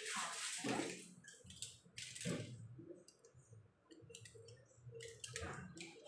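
Rustling and clicking as a foil-lined metal baking pan is handled, in a few short spells with the loudest in the first second.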